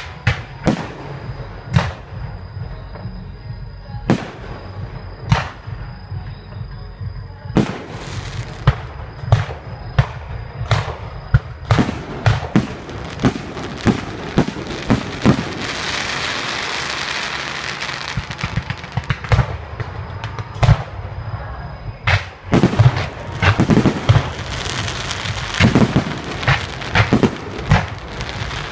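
Fireworks display: shells bursting with sharp booms, spaced about a second apart at first, then a long stretch of dense crackling about halfway through, followed by a rapid volley of booms near the end.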